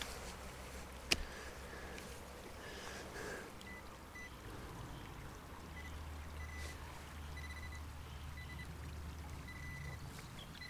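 A metal-detecting spade digging into soil, with one sharp clink of the blade about a second in. From about four seconds in come short, high electronic beeps, on and off, from the metal-detecting gear as the dug soil is searched. A faint steady rush of running stream water lies underneath.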